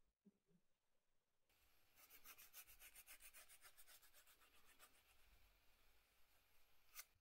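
Grooved wooden edge slicker burnishing the freshly dampened edge of a leather strip, in rapid, even back-and-forth strokes that start about a second and a half in. A single sharp click near the end.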